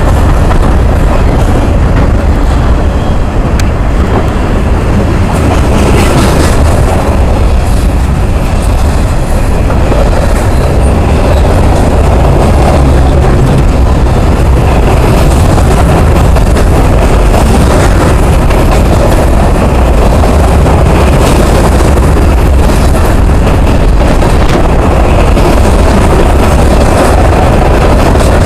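Freight train cars rolling past close by: a loud, steady rumble of steel wheels on the rails, with light clicks from the wheels over rail joints.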